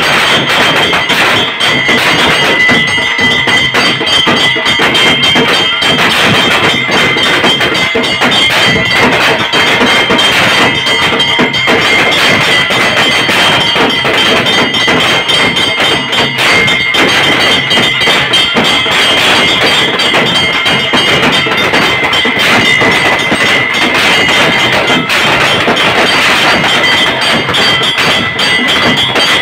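Loud traditional temple festival music: dense, rapid drumming over a steady, high held tone.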